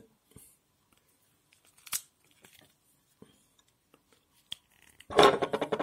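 Unripe green walnut being forced open to crack its hardening shell: a few light clicks, then, about five seconds in, a loud crackling, creaking tear as the shell strains and splits.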